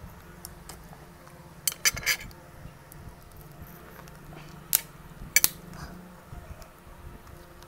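Sharp cracks and clicks of a metal crab cracker squeezing a snow crab leg's shell: a quick cluster of three about two seconds in, then two more a little over halfway through.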